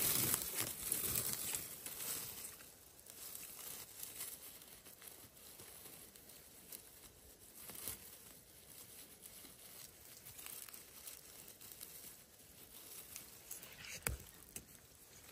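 Rustling and crinkling of clothing and forest-floor vegetation as someone moves about, loudest in the first couple of seconds, with scattered small snaps and one sharp click near the end.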